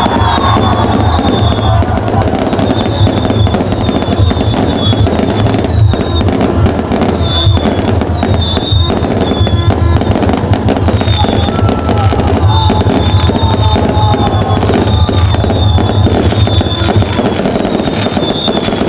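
Fireworks and firecrackers going off without pause in a dense crackle of pops and bangs, with music playing along.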